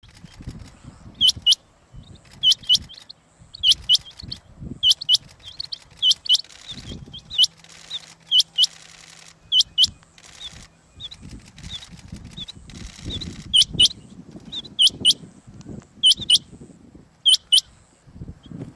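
Rain quail calling: loud, sharp double notes, each sweeping down in pitch, repeated about once a second. The calls break off for several seconds in the middle, then resume.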